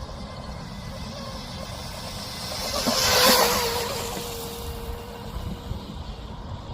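Mini RC speed boat passing close by: its high-pitched motor whine and rush swell to a peak about three seconds in, then fade as it moves away, the whine dropping slightly in pitch. A steady low rumble runs underneath.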